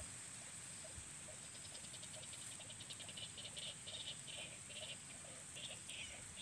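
Frogs calling in quick repeated pulses, over a steady high-pitched insect drone.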